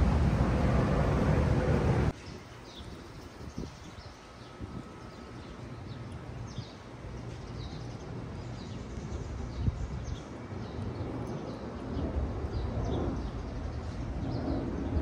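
Loud wind buffeting the microphone, cut off suddenly about two seconds in. Then quieter outdoor ambience with small birds chirping over and over in short, quick calls.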